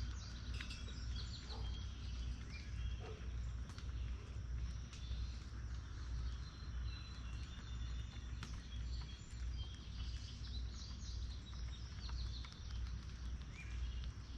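Small songbirds chirping and twittering, many short high calls overlapping throughout, over a steady low rumble.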